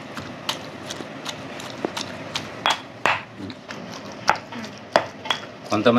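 A stone pestle pounding a wet chutney mash of fried ivy gourd, green chillies, tomato and tamarind in a stone mortar (rolu). It makes sharp, irregular knocks, about two to three a second.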